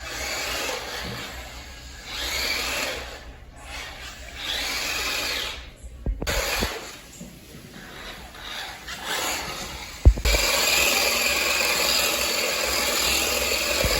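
Small electric motor of a 1:18 scale RC drift car whirring, speeding up and slowing in several rises, with a sharp knock about ten seconds in followed by a steadier, louder whir.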